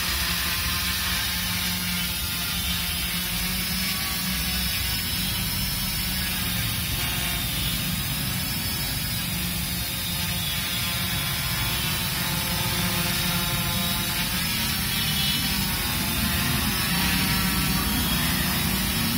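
A small quadcopter's electric motors and propellers hum steadily while it hovers in position and altitude hold. A faint high whine wavers slightly in pitch, and the sound grows a little louder near the end.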